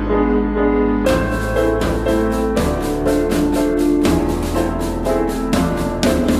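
Instrumental passage of a song with no vocals: sustained piano or keyboard chords, joined about a second in by a steady drum-kit beat.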